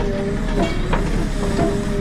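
JCB 3CX backhoe loader working: the engine rumbles under a hydraulic whine that shifts in pitch as the load changes, with sharp metal clanks from the linkage.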